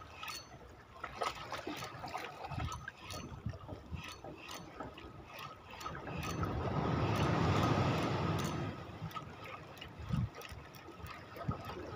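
Sea water lapping against shoreline rocks, with one wave surging in and washing over them from about six to nine seconds in. Light ticks run throughout from a spinning reel being wound in.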